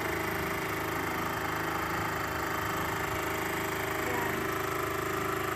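Steady rush of wind on a phone microphone from a moving bicycle, with a faint steady hum underneath.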